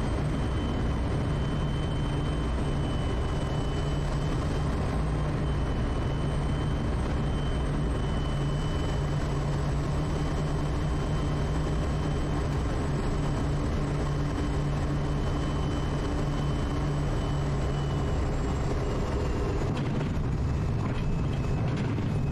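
Quest Kodiak's single-engine Pratt & Whitney PT6A turboprop on final approach: a steady propeller drone with a thin high turbine whine over it. Near the end the whine fades as power comes back just above the runway.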